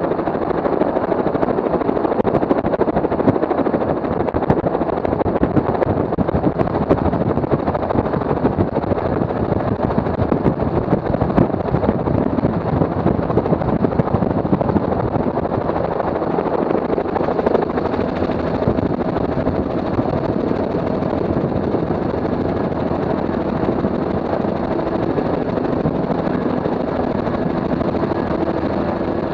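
A small multirotor drone's motors and propellers running with a steady, dense hum, picked up by the drone's own onboard camera.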